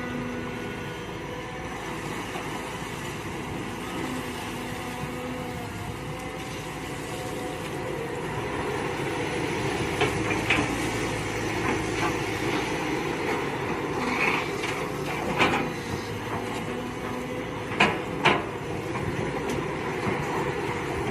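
Mini excavator engine running steadily under load while digging, with sharp metallic clanks and scrapes from the bucket, several of them in the second half.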